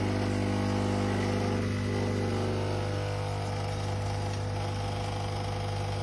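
Smeg espresso machine's vibration pump humming steadily as it pushes hot water through the coffee, brewing a double shot of espresso.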